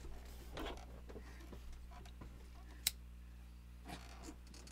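Faint steady room hum, with a single sharp click nearly three seconds in as a pocket lighter is struck alight.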